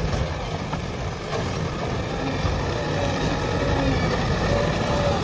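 Heavy diesel engine of a backhoe loader running steadily with a low rumble.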